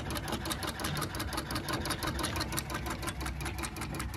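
National Two Spool treadle sewing machine running at a steady speed: a rapid, even clicking from the needle and shuttle mechanism over a low rumble.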